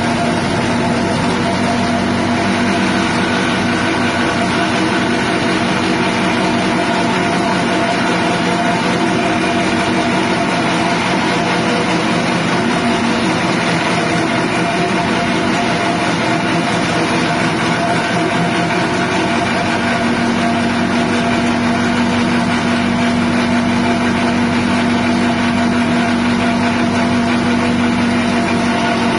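Grass chopper machine's 6.5 HP petrol engine running steadily at a constant speed.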